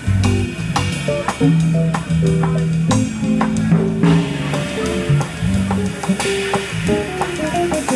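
Small jazz group playing: an electric guitar plays a run of short melodic notes over a drum kit kept in time on snare and Zildjian cymbals.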